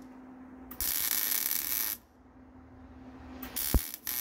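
Wire-feed welder laying two short tack welds on a steel air tank: two bursts of arc crackle about a second long each, with a steady hum from the machine between them and a sharp knock during the second weld.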